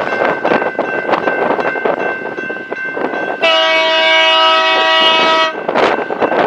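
A freight train rolls past, its wheels clacking steadily over the rail joints. Roughly halfway through, a locomotive air horn sounds one chord blast of about two seconds.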